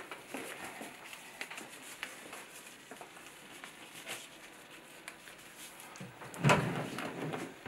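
Disposable exam glove being pulled onto a hand: faint rustling and small snaps. About six seconds in, a cabinet drawer is pulled open, the loudest sound.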